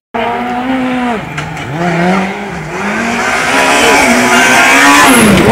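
Rally car engine revving hard, its pitch climbing and dropping again and again with throttle bursts and gear changes, while the tyres squeal as it slides through a bend. It grows louder as the car comes closer.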